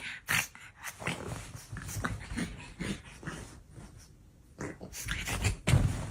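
A dog vocalising in short, irregular bursts, louder again near the end.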